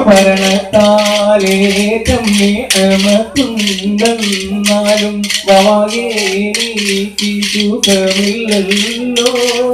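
Kolkali sticks clacking together in a fast, even rhythm as dancers strike them in pairs, with a voice singing over it.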